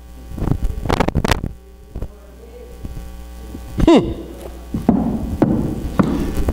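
Steady electrical mains hum, broken by irregular thumps and rustles of handling noise, with a short falling vocal sound about four seconds in.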